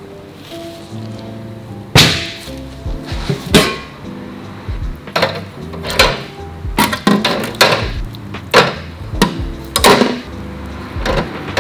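Small metal bicycle parts dropped one after another into a stainless-steel tank of water, giving about ten sharp splashing knocks and clinks. Background music plays underneath.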